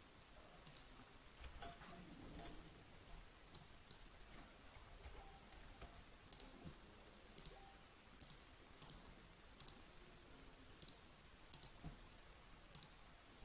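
Faint computer mouse clicks, a dozen or so at irregular intervals, over near-silent room tone.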